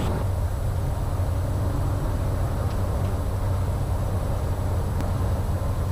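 Cessna 208 Caravan's single turboprop engine and propeller droning steadily in the cockpit during the climb, a steady low drone.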